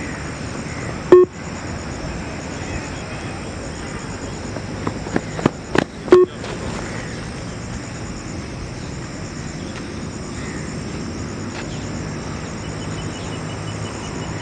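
Yo-Yo test audio signal: two short electronic beeps about five seconds apart, marking the turn and the return of a 20 m shuttle run at speed level 13. A few sharp clicks come just before the second beep, over a steady outdoor background hiss.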